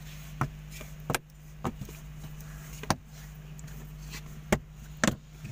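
Plastic passenger airbag cover on a Mitsubishi Xpander dashboard being pressed down by hand, giving about half a dozen sharp clicks and knocks at irregular intervals as it is pushed flush into its mounts.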